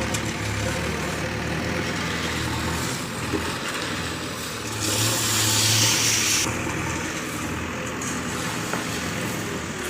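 A backhoe loader's diesel engine running steadily at a low hum. About halfway through, a loud, smooth rushing hiss lasts about a second and a half.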